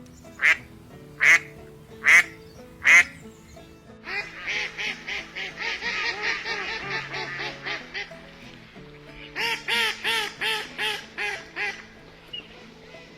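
Ducks quacking over soft background music: four loud single quacks about a second apart, then a fast run of quacks lasting about four seconds, and another shorter run of quacks near the end.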